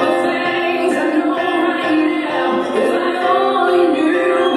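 Music with singing played over a DJ's PA speakers.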